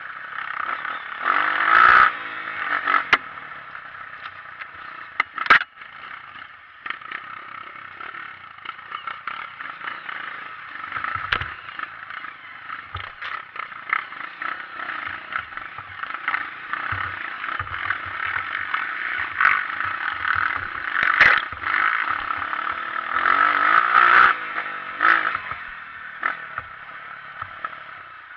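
Honda CRF230 trail motorcycle's single-cylinder four-stroke engine running under way, its revs climbing about two seconds in and again near the end, with frequent clattering knocks throughout.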